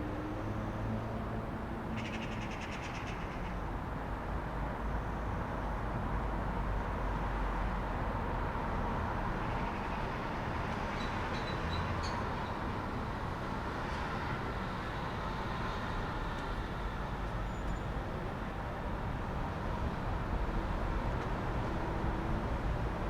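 Calm city street ambience: a steady low rumble of distant traffic with birds calling over it. There is a short rapid rattle a couple of seconds in and a few brief high chirps about halfway through.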